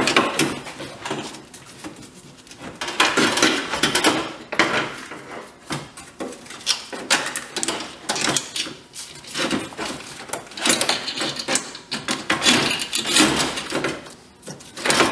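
Irregular bursts of scraping, knocking and rattling as a car's damaged AC condenser is worked up and out from between the radiator and the front radiator support.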